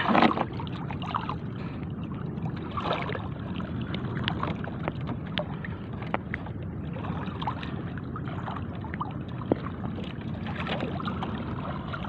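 Wading through shallow sea water: steady sloshing and swishing of legs moving through the water, with scattered small splashes and drips.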